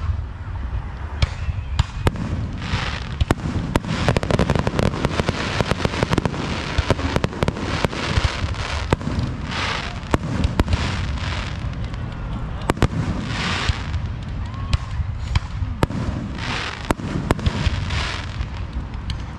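Aerial fireworks display: shells bursting overhead in a rapid, irregular run of sharp bangs, many in quick succession.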